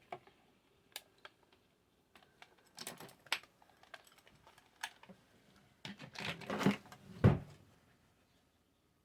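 Light clicks and taps of small parts and tools being handled on a work surface, with a short rustle and one louder knock about seven seconds in.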